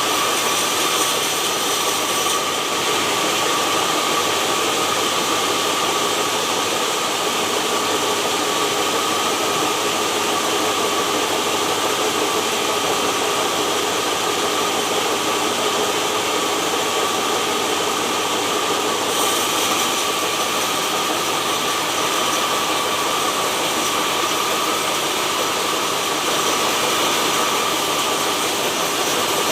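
Sawmill machinery running steadily: an even hiss with a constant high whine, no strikes or knocks.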